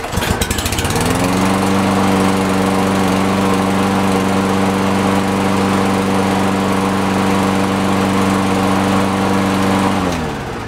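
Kohler XT650 engine on a new Toro self-propelled push mower, pull-started for its first run: it catches at once, revs up over about a second and runs steadily at full speed, then winds down and stops near the end.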